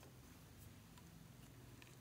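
Near silence: faint room tone with a low steady hum and a few faint small ticks.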